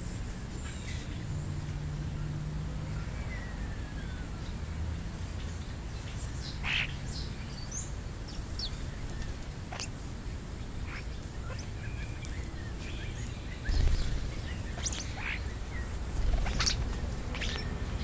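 Scattered short chirps and calls from house sparrows and European starlings feeding on the ground, with one falling whistled call about three and a half seconds in. A steady low rumble runs underneath, and two brief low thumps come in the second half.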